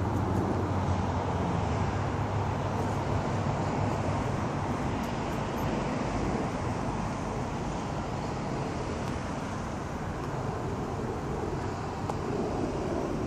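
Street traffic noise: a steady hum of passing vehicles, with a low engine rumble that fades away over the first few seconds.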